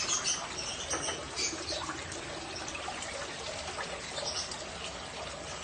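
Shallow pond water splashing and trickling in uneven bursts as a hand net is dipped and lifted to catch fish.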